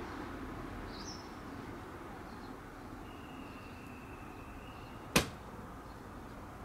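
Steady outdoor background noise with a short bird chirp about a second in and a thin, steady high tone lasting about two seconds, cut off by a single sharp click about five seconds in, the loudest sound.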